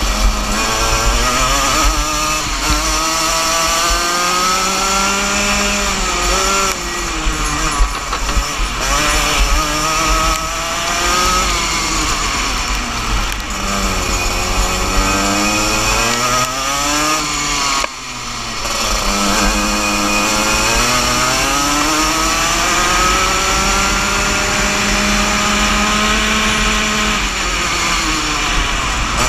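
Single-cylinder two-stroke engine of a 125cc Junior Max racing kart under race load, heard from on board. Its note climbs along the straights and drops each time the throttle comes off for a corner, with one long low dip about halfway through and a brief cut-out just after it.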